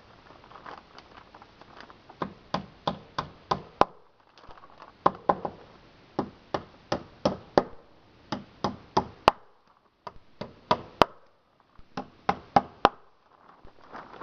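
Hammering: runs of four to six quick hammer blows, about three or four a second, with short pauses between the runs.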